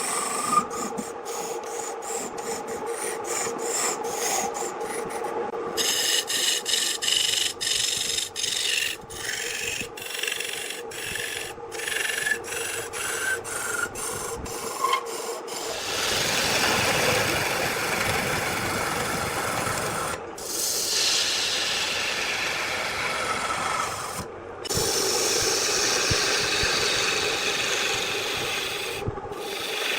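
Wood lathe running with a steady hum while the spinning wood is scraped. The scraping is broken by many very short gaps in the first half and runs more continuously in the second half.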